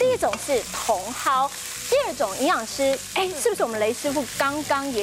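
Sliced grouper fillets, onion and wood ear mushrooms sizzling in a hot oiled pan as they are stir-fried and turned with chopsticks, under continuous speech.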